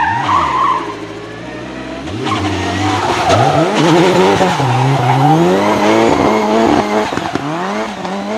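Nissan 200SX S13 drift car's turbocharged engine revving hard, its pitch rising and falling again and again, with tyres squealing as the car slides.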